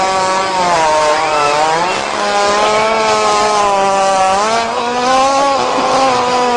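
Animal breaking wind: one long, loud, buzzing fart that wavers in pitch, with a brief break about two seconds in.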